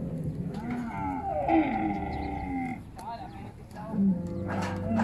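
Dromedary camels calling in a crowded pen: several long, low calls overlapping, easing off briefly about three seconds in.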